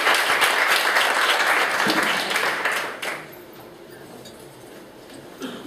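Audience applauding, a dense patter of many hands clapping that dies away about three seconds in, leaving low room noise.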